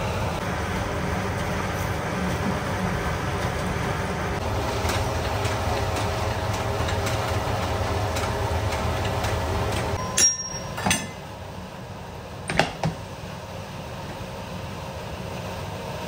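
Steady hum of running machinery, which drops in level about ten seconds in, followed by four sharp knocks or clatters.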